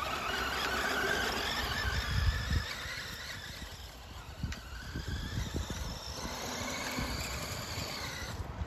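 Electric motor and gears of an HBX mini RC monster truck whining, the pitch rising and falling with the throttle, while it runs on a battery that has not charged properly. Low rumbles and thumps are mixed in, loudest about two seconds in.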